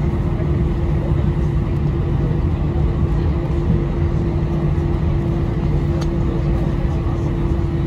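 Cabin noise inside an Airbus A319: a steady low drone from the aircraft's engines and air systems, with a constant hum running through it.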